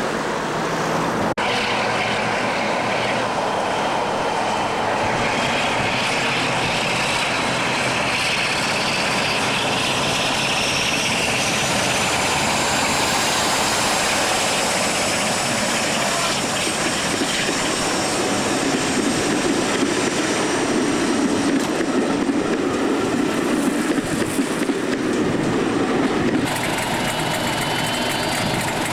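Heritage British diesel locomotives and their train running along the line. A high whine climbs steadily in pitch over the first ten seconds or so as a heavy diesel works under power, and the engine grows louder and heavier in the second half. Near the end it cuts to Class 31 No. 31 271 ticking over at a standstill.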